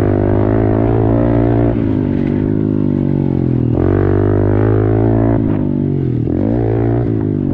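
Honda CRF110 pit bike's single-cylinder four-stroke engine running at fairly steady revs while ridden. The pitch wavers a little, and about six seconds in the revs briefly rise and drop.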